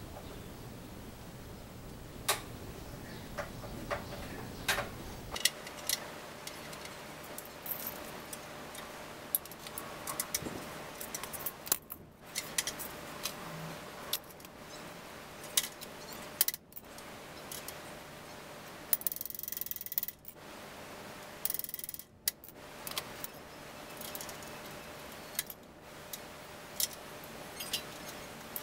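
Small metal tools clinking and clicking against a bicycle's rear axle, nuts and frame dropout during hand work on the rear hub: irregular sharp metallic clicks, with two short rustling scrapes a little past the middle.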